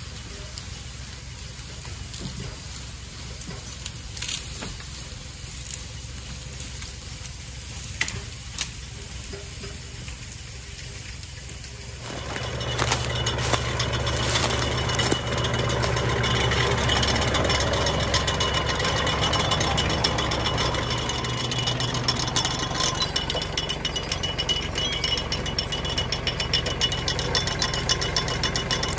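An engine running at low speed with scattered clicks. About twelve seconds in it speeds up to a louder, steady run with a constant metallic rattle.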